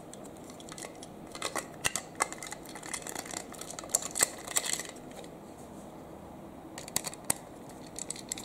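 Small hard plastic toy pieces, likely toy trains and track parts, being handled, giving irregular light clicks and taps. They pause for about two seconds a little past the middle, then click a few more times near the end.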